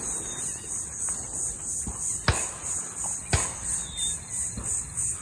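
High-pitched insect chorus, a steady shrill band pulsing about three times a second, with two sharp clicks about a second apart midway.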